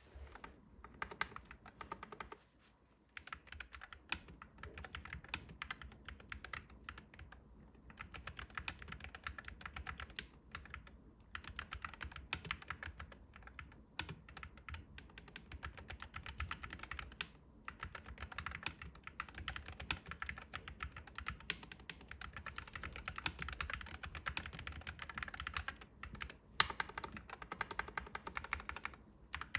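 Akko MonsGeek FUN60 Max HE magnetic-switch keyboard being typed on fast and continuously, a dense run of key clicks with a few brief pauses, the first about three seconds in.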